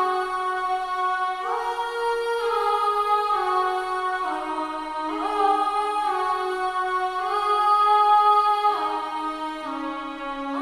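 Sampled pad sound playing slow sustained chords. The chord changes about every two seconds, gliding briefly from one to the next.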